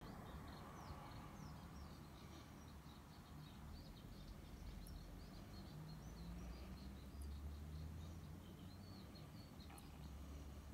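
Faint chirping of small birds, many short quick calls, over a low steady hum.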